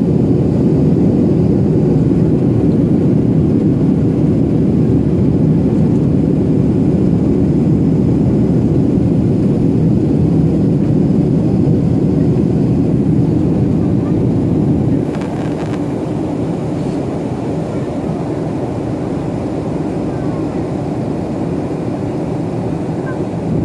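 Cabin noise of a Sun Country Airlines Boeing 737 in flight, heard from a window seat over the wing: a steady low rumble of the jet engines and airflow. It drops a little in level about fifteen seconds in.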